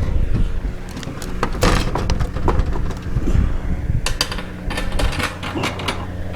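Irregular clicks, knocks and scrapes of bolts, nuts and hand tools being handled and fitted during chicken coop assembly, over a steady low hum.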